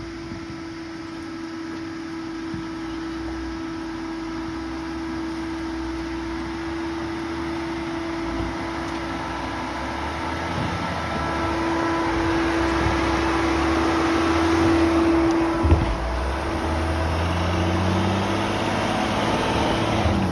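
Land Rover Defender crawling slowly over a rocky track, its engine running with a steady hum and its tyres crunching over stones, growing louder as it draws near. About three-quarters of the way in there is one sharp knock of rock under the wheels.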